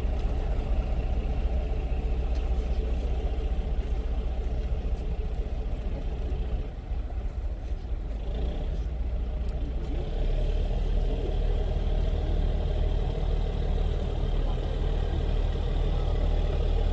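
Fishing boat's engine running with a steady low rumble, growing louder and steadier about ten seconds in.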